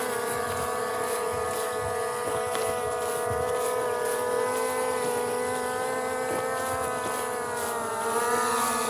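Skydio 2 quadcopter drone's electric motors and propellers making a steady high whine while it flies. The pitch dips briefly near the end and then comes back up.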